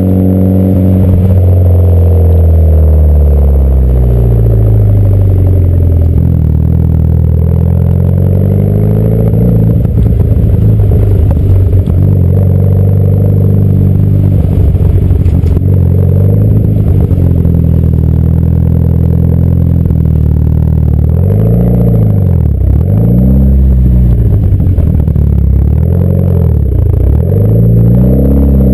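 Mitsubishi Lancer Evolution IX's turbocharged four-cylinder engine through an AMS turbo-back exhaust, heard close to the exhaust, pulling and easing off: its pitch climbs and falls again and again, with several quick rises and drops near the end.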